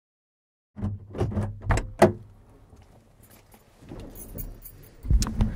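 Handling noises inside a parked car's cabin: a run of sharp knocks and rattles starting about a second in, a quieter stretch, then louder knocking near the end, over a low steady hum.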